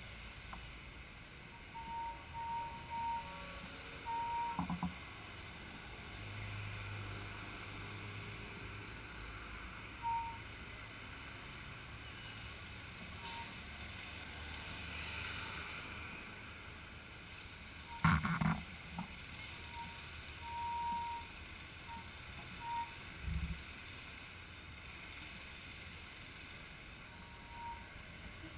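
Quiet outdoor background noise with short faint beeps scattered through it and a sharp knock about two-thirds of the way in.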